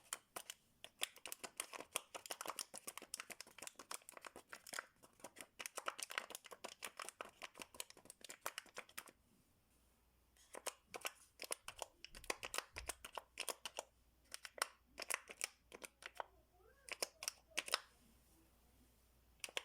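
Paper origami pop-it toy being pressed and handled: fast runs of light, faint papery clicks and crinkles, dense for about nine seconds, then after a short pause sparser clicks.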